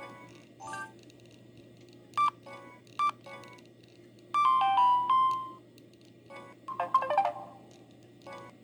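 Samsung SGH-E200 mobile phone playing its built-in ringtones through its small speaker. The melodies come as short snatches one after another, most breaking off within a fraction of a second; the longest runs a little over a second in the middle. A steady low hum lies underneath.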